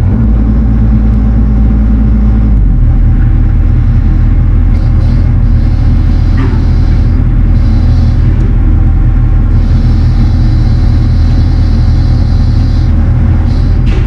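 Mini excavator's diesel engine running loud and steady, heard from inside the cab. Its low note shifts about two and a half seconds in.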